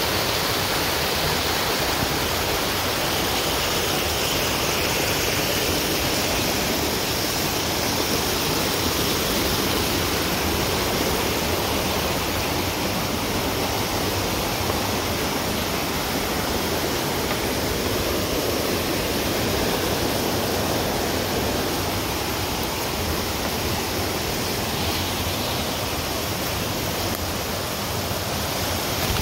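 Creek water cascading over rock ledges and small falls, a steady rushing noise.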